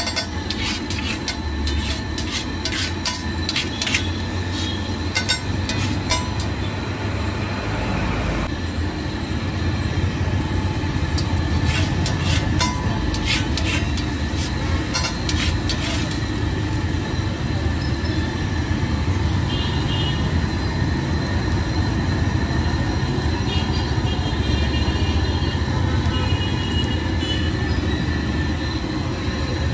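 Street-stall egg cooking: a steady low rumble under a run of sharp metallic clicks and scrapes from a spatula working on a hot griddle. The clicks come thickest in the first half and thin out later.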